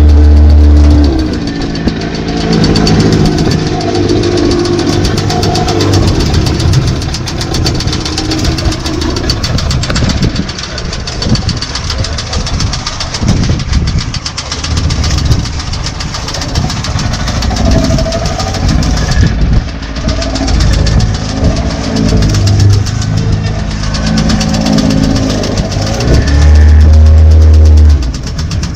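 Small fishing boat at sea: a motor runs under a busy wash of wind and water noise. A much louder steady low drone comes in for about a second at the start and again near the end.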